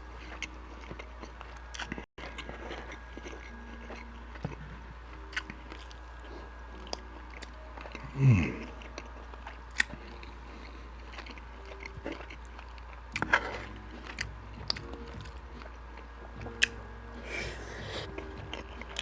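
Close-miked chewing of beef chunks with gravy and sticky rice: wet mouth clicks and smacks throughout, with a short low "mm" about eight seconds in.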